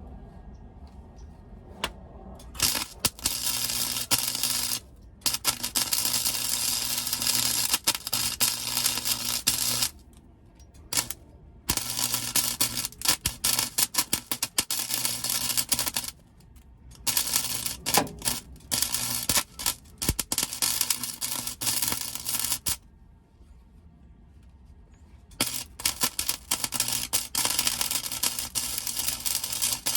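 Arc welder crackling and sizzling as beads are laid on car floor pans, in about five bursts of two to five seconds with short pauses between, a steady low hum under each burst.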